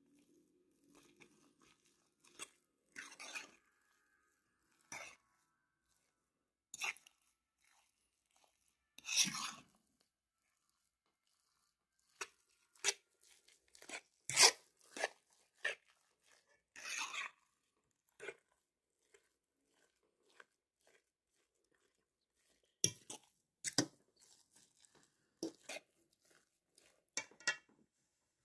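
A utensil working through thick mashed potatoes in a bowl: irregular knocks, scrapes and squishy smears, with a short pause a little past the middle.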